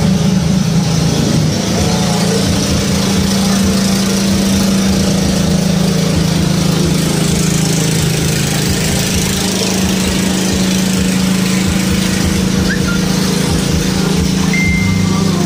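Engine of a large passenger boat running at a steady speed, a constant loud drone.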